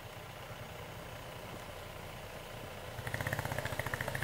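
Vehicle engines idling with a steady low rumble. About three seconds in, a nearer engine with a fast, even pulse grows louder.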